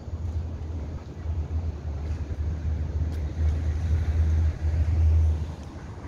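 Wind buffeting the microphone: a low, gusty rumble that swells to its loudest about four to five seconds in, then drops off near the end.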